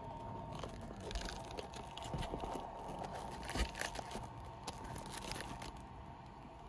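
Handling noise from a phone being moved and set up overhead: scattered rustles, scrapes and small clicks, over a faint steady whine.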